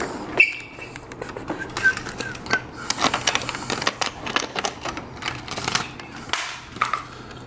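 Keys and a small metal post office box door clicking and rattling as the box is unlocked and swung open, with many short sharp clicks throughout. Paper rustles near the end as mail is pulled out.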